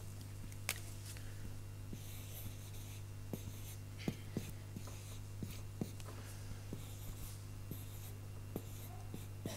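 Marker pen writing on a large white drawing wall: faint scratchy strokes with small clicks as the tip meets and leaves the surface, over a steady low electrical hum.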